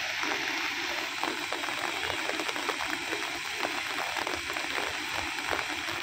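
Steady, even rush of Bhadbhada waterfall running high with plenty of water.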